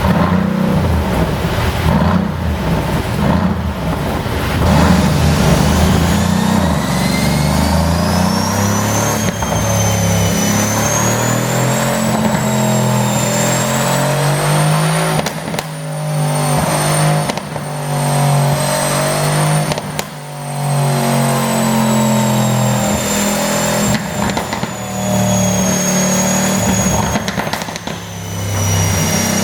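Mercedes-AMG C63 Coupe's twin-turbo V8 and exhaust running under repeated throttle, the revs rising and falling, with a high whine that slides up and down. Sharp pops on the lift-offs come from a tune set up to make the exhaust pop.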